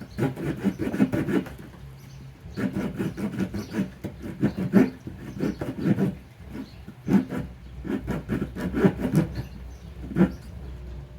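Saw blade of a Victorinox RangerGrip 61 folding knife cutting hardwood in quick back-and-forth strokes, in several bursts with short pauses between, with one last stroke near the end.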